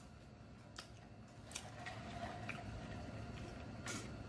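Faint eating and mouth noises, soft wet smacks and a few sharp clicks, from a man chewing very spicy noodles, then a drink from a glass water jug near the end.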